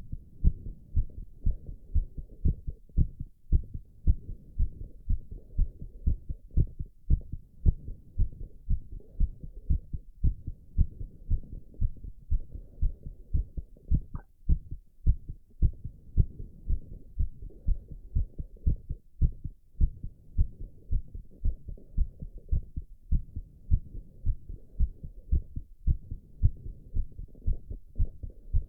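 A man's heartbeat recovering after squats: a steady, regular train of low thumps.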